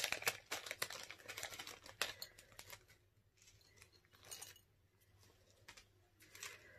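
Small packaging bag crinkling and rustling as an earring card is pulled out of it, a dense run of crackles over the first few seconds, then a few faint rustles.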